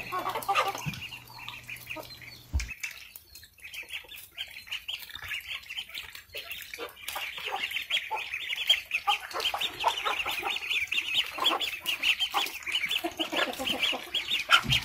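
A group of ducklings peeping, many short high calls overlapping in a dense, continuous chatter that builds up a few seconds in and grows louder toward the end.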